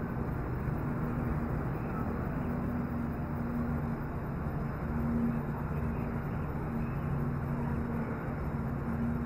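Steady low mechanical hum over a constant background of outdoor noise.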